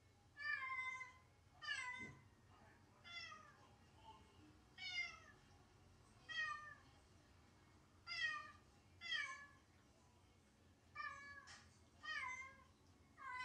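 A house cat meowing over and over, about a dozen drawn-out calls each falling in pitch, roughly one a second: the lonely crying of a cat left alone, a sign of separation anxiety.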